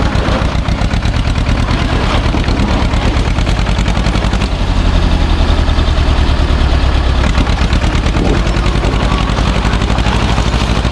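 Same tractor's diesel engine working under load as it pulls a trailer loaded with stones up out of a riverbed, its exhaust running in rapid, even pulses, swelling slightly about halfway through.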